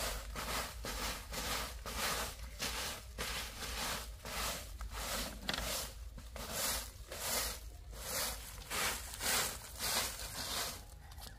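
Broom of dried grass or fronds sweeping bare earth, with about two swishing strokes a second that stop near the end.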